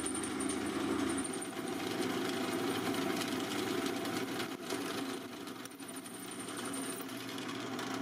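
Drill press running with a long aircraft extension (airplane) bit boring through a metal part held in a vise: a steady motor hum with cutting noise, the bit complaining a bit as it goes through.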